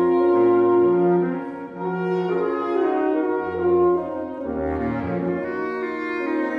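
Saxophone quartet (soprano, alto, tenor and baritone) playing a tango. The upper saxophones hold sustained chords while the lowest part moves underneath in short separate notes, with a brief dip in loudness about a third of the way in.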